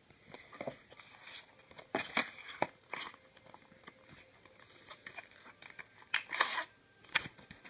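Handling noise from a MagSafe power adapter, its cable and plastic packaging: scattered clicks, light knocks and crinkling plastic, with the longest rustle about six seconds in.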